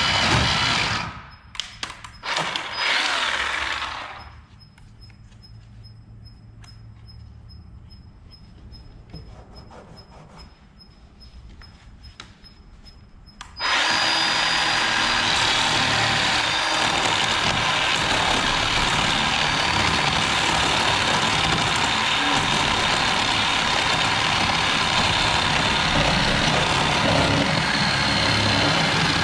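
Harbor Freight cordless battery chainsaw cutting into a boat's transom. It runs, stops about a second in, gives a few short bursts, then falls quiet for about ten seconds before starting again near the middle and running steadily to the end.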